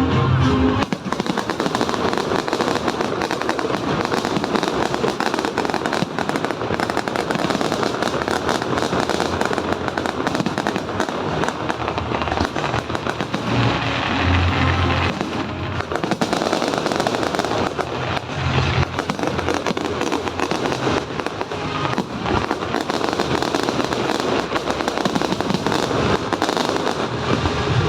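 Fireworks show: a dense, continuous barrage of bangs and crackling from aerial fireworks, with accompanying music playing under it.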